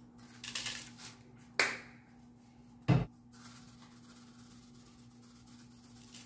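Seasoning shaken from a plastic shaker bottle onto raw chicken in an aluminium pot: soft rattling and rubbing, a sharp tap about a second and a half in, and a louder short knock about three seconds in. A faint steady hum runs underneath.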